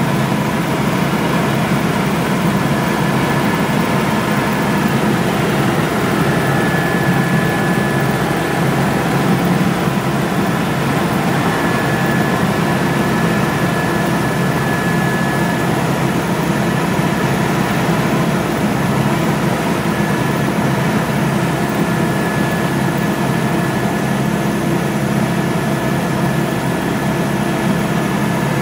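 Helicopter cabin noise in flight: a steady, loud drone of engine and rotor, with a thin high whine over it.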